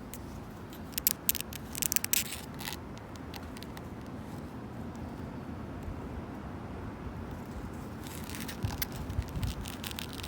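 Long fingernails scratching and clawing at a wooden bench in two bursts of quick, crackly scrapes, about a second in and again near the end. A steady low rumble of wind and distant traffic lies underneath.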